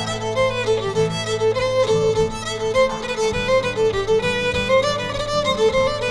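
Background music: a fiddle playing a quick melody of short notes over low held accompaniment.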